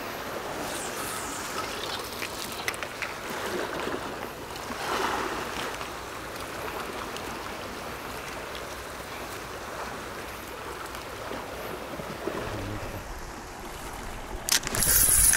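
Sea water washing and lapping against a rocky shore in a steady rush, with a louder burst of noise near the end.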